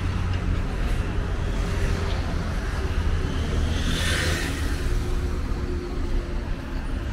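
City street traffic: a steady low rumble of passing cars, with a louder rush about four seconds in as a vehicle goes by close.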